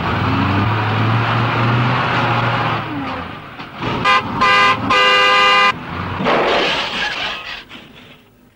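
Heavy dump truck's engine running with a steady low drone. About four seconds in the truck horn sounds two short toots, then a longer blast.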